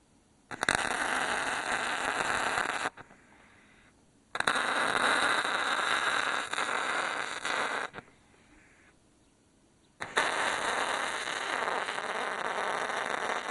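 MIG welder laying weld beads in three bursts of a few seconds each, crackling and spattering, each starting and cutting off suddenly.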